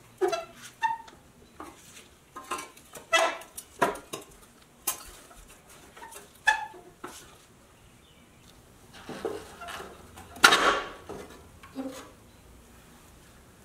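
Flat-blade screwdriver prying and scraping at the tabs holding the grille on a pressed-steel Tonka toy truck cab: irregular metal clicks, scrapes and short clinks. A longer, louder scrape comes a little after ten seconds, then the work stops.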